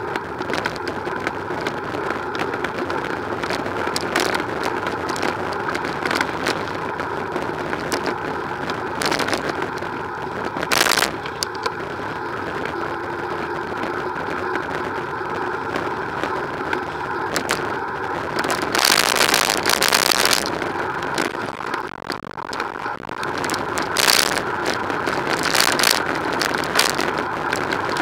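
Road traffic passing in the adjacent lanes, heard from a moving bicycle, with many small clicks and rattles from the bike over the path surface. A few louder rushes of noise come and go, the longest about two-thirds of the way through.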